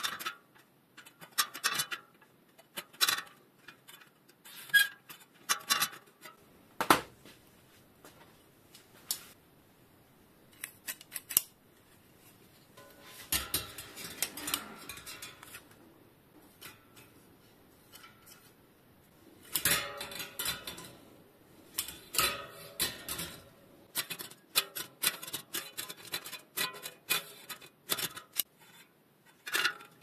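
Small metal clicks, ticks and scrapes of hand tools on a bicycle wheel's spokes in a truing stand: a spoke key turning the spoke nipples and a spoke tension meter clipped onto the spokes. Scattered sharp clicks, with busier stretches near the middle and in the last third.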